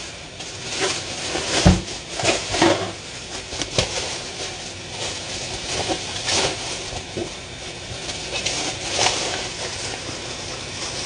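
Kitchen tap running steadily into a stainless steel sink, with a plastic bag crinkling and rustling as it is handled; a single thump about two seconds in.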